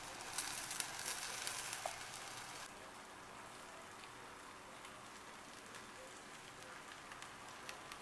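Vegetable fried rice sizzling in a Parini 304 stainless steel sauté pan, stirred with a wooden spatula that clicks and scrapes against the pan. About three seconds in the stirring stops and a softer, steady sizzle goes on with occasional pops.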